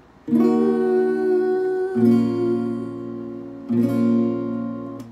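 Capoed acoustic guitar, three chords each strummed once and left to ring out, about one every 1.7 seconds.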